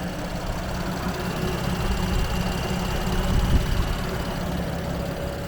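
Car engine idling: a steady low rumble, slightly louder about three and a half seconds in.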